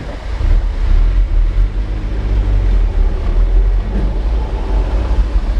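Engine and road rumble inside a pickup truck's cab as it drives over a rough, rutted dirt road, getting louder about half a second in.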